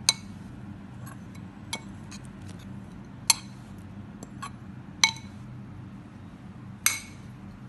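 Glass bowl clinking against a stainless-steel mixer jar as grated coconut is tipped and scraped in: five sharp, ringing clinks one to two seconds apart, over a steady low hum.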